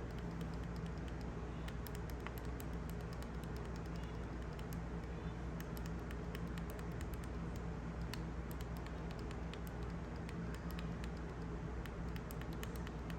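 Faint, irregular clicking of the plastic buttons on a Sonic Alert digital alarm clock being pressed while the minutes are stepped forward, over a steady low hum.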